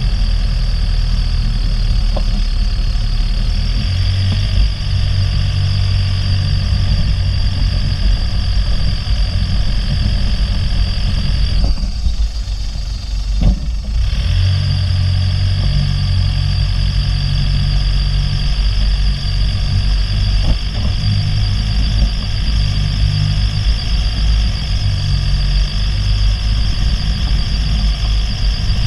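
Off-road jeep's engine running steadily as it crawls over a rough dirt track, with a few sharp knocks from the bumps. It eases off briefly about twelve seconds in, then picks up again.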